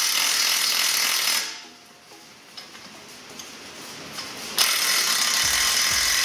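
Small Makita cordless impact driver hammering a brake caliper mounting bolt home, in two bursts: one at the start lasting about a second and a half, and another from about four and a half seconds in, with a quiet pause between. The tool is light on torque and is only snugging the bolt ahead of final torquing with a torque wrench.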